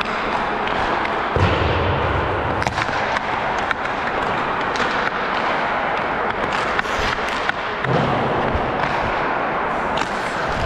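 Ice hockey skating noise: skate blades scraping and carving on the ice, with frequent sharp clacks of sticks and pucks and a couple of low thuds.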